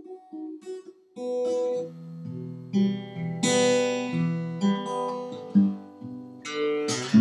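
Acoustic guitar music: a few soft picked notes, then louder strummed chords from about a second in.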